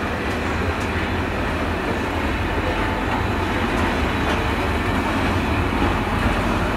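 Freight train of loaded steel-coil wagons rolling past: a steady rumble of wheels on the rails.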